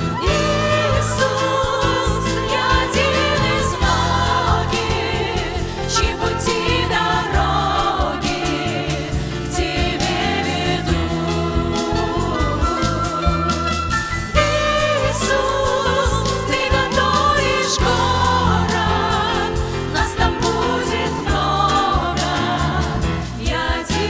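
Christian worship song sung by a vocal group over band accompaniment with bass and a steady beat.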